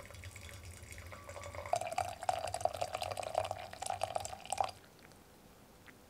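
Water poured in a thin stream into a glass pot onto a tea bag, a splashing trickle. It grows louder about two seconds in, then drops away suddenly over a second before the end.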